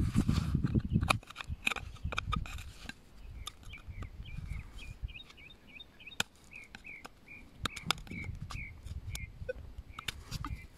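A steel knife blade scrapes and clicks against rock as it pries in a narrow crack, making sharp, irregular ticks, with a low rumble in the first second. A bird chirps repeatedly in short, high notes from about three and a half seconds in until about nine seconds.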